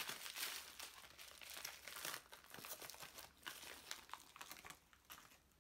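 Plastic packaging crinkling and rustling in quick irregular handling noises as an item is taken out, faint, stopping about five seconds in.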